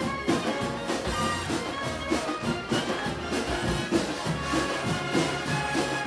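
A brass-heavy band playing live, with trumpets and trombones carrying the tune over a steady beat on large bass drums: a football supporters' band and a symphonic wind band performing together.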